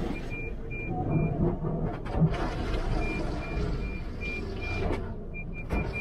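Water jets spraying onto the car's windshield and body inside an automatic car wash, heard from within the cabin over a steady low rumble of the wash machinery. The spray hiss comes in spells and is strongest from about two to five seconds in. A high electronic beep repeats about twice a second throughout.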